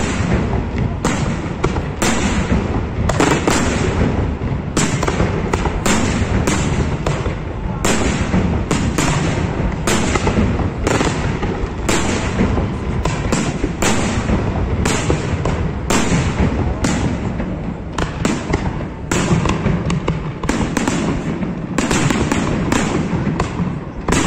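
Aerial fireworks display: shells bursting in a rapid, continuous barrage of sharp bangs and crackles, several a second.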